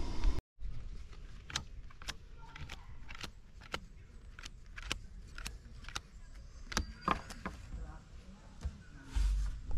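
Playing cards being dealt onto a wooden picnic table: a run of sharp light snaps and taps, irregular, about one or two a second. A low thump near the end.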